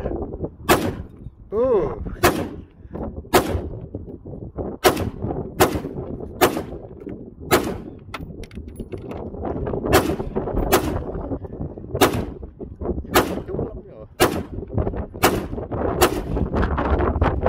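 AR-style semi-automatic rifle fired one aimed shot at a time, about fourteen sharp shots roughly a second apart, with a pause of about two seconds midway.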